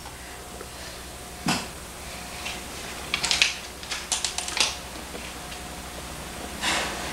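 Scattered light clicks and a few short scraping hisses, from matches being struck and handled to light candles on a birthday cake, over a steady low hum.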